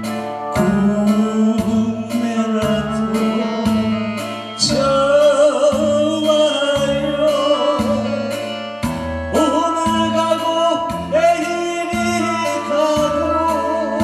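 A man singing a Korean trot song into a handheld microphone over amplified backing music with a steady beat of about two strokes a second.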